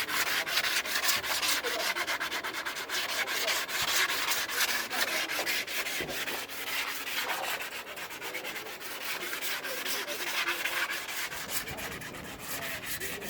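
Sanding of body filler on a car body panel: rapid, repeated rubbing strokes of abrasive on the filler.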